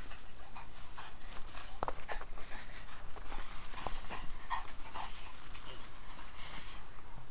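A Newfoundland dog panting and making many short, separate noises during rough play.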